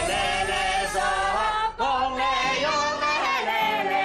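A woman singing a high folk-style melody with a wavering, ornamented line over low backing music, pausing briefly for breath about two seconds in.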